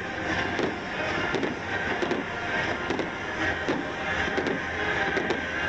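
Aerial fireworks bursting in a dense barrage: a continuous rumble with many sharp cracks and pops scattered through it.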